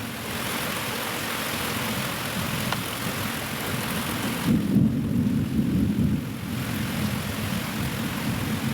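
Steady rain falling, with a low rumble about four and a half seconds in that lasts around two seconds.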